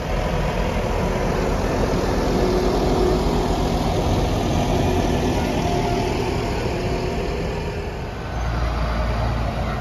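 Large farm tractor's diesel engine running steadily as it tows a heavy carnival cart slowly past. A deeper low rumble comes in near the end.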